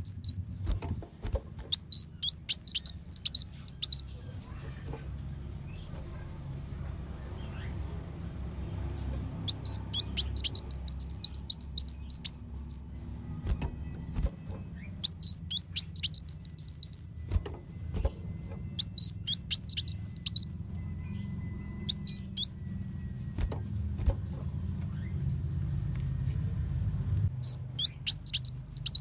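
Kolibri wulung (a sunbird) singing sharp, high, rapid chattering phrases of a second or few seconds each, repeated with pauses in between. A steady low hum runs underneath.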